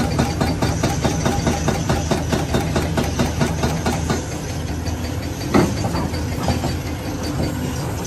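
Hydraulic breaker on a Cat crawler excavator hammering concrete rubble in rapid, regular blows over the steady running of the excavator's engine. The blows turn less regular about four seconds in, with one louder strike a little after five seconds.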